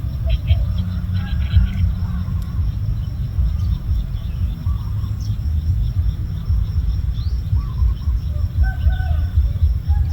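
Steady low rumble with faint, scattered bird chirps and short whistles over it.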